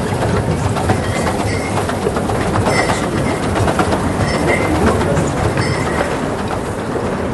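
A rail vehicle, a train or tram, running along the track with a steady rumble and clattering wheels, and a few brief high squeaks.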